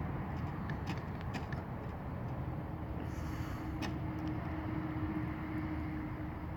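Electric motor and gears of a radio-controlled scale rock crawler whining at a steady pitch from about two and a half seconds in, over a steady low rumble, with scattered clicks and knocks from the crawler on wood and rock.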